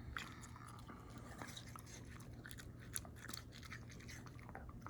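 A dog chewing watermelon: faint, irregular clicking and crunching of its jaws.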